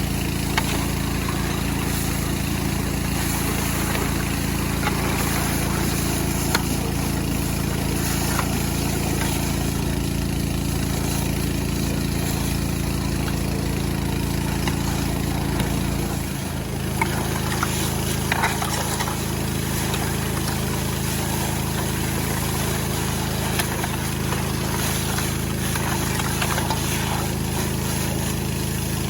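Small Robin engine running steadily. About halfway through, its note dips briefly and settles at a slightly different pitch.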